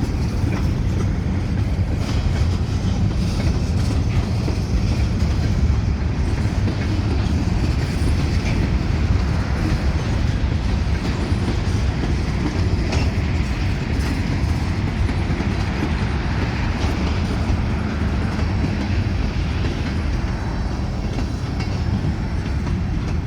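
Freight train cars rolling past on the track: a steady, low rumble of wheels on rail that continues without a break and eases slightly near the end.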